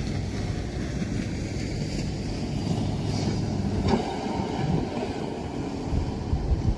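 Wind buffeting the microphone over a low, steady rumble, with a single short knock about four seconds in.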